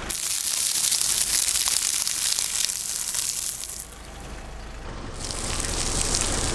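Car tyre crushing crunchy objects with a dense crackling and crunching, in two spells: the first runs about four seconds, then after a short dip it builds again from about five seconds in.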